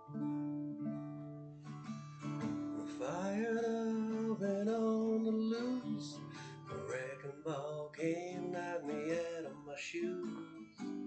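Acoustic guitar playing a slow song, with a singing voice carrying a melody over it from about three seconds in.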